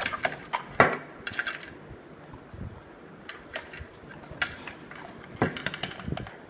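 Scattered sharp clinks and taps of a plate and a drinking glass being handled on a table, the loudest about a second in.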